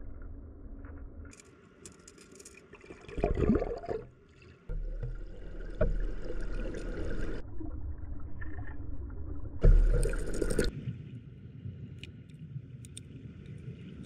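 Rushing stream water and bubbles heard underwater through a GoPro's waterproof housing. The sound changes abruptly several times, with louder surges about three seconds in and again near ten seconds.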